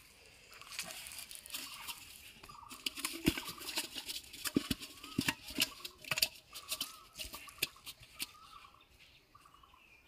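An aluminium pot holding live fish being lifted and carried, giving a run of sharp knocks and rattles that are thickest in the middle and die away near the end. Short chirping bird calls run behind them.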